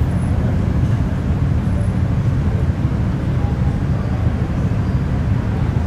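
Steady low rumble of city traffic, with no distinct events standing out.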